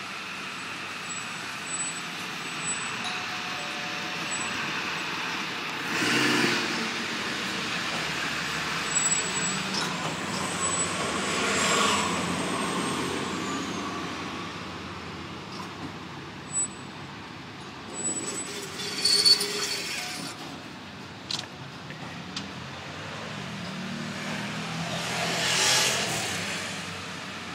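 Tow truck's engine running as it reverses slowly, towing a sedan on its wheel lift, swelling in loudness a few times. A few sharp knocks about two-thirds of the way through.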